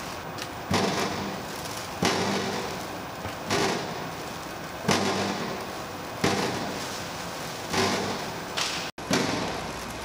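Dull thuds, each with a short fading tail, repeating about every second and a half over a steady background noise.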